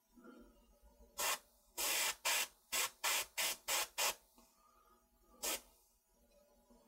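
Airbrush spraying thinned paint in short hissing bursts: eight quick ones from about a second in, then one more a second and a half later. It is misting the base colour over painted veining to soften it.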